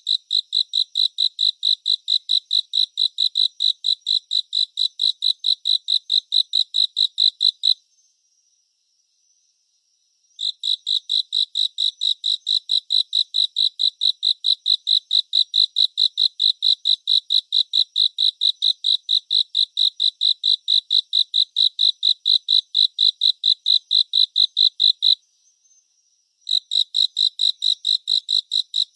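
A cricket chirping in a rapid, even train of high-pitched pulses, about four a second. It pauses twice for a couple of seconds, after about eight seconds and again a few seconds before the end, while a fainter steady high trill carries on underneath.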